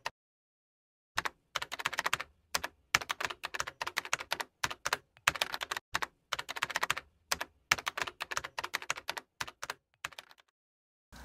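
Rapid runs of sharp typing-like clicks, as of a computer keyboard, broken by short gaps of dead silence; they begin about a second in and stop near the end.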